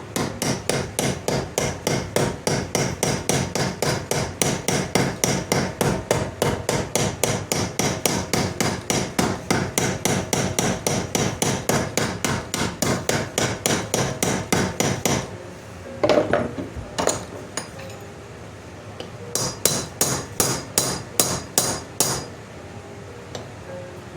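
Hammer peening over the end of a handle pin through a knife tang: a long run of quick, even strikes, about four a second, for some fifteen seconds, then a short pause with a couple of knocks, and a second run of about nine strikes.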